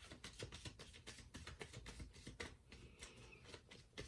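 Tarot cards being handled: faint, quick, irregular clicks and taps.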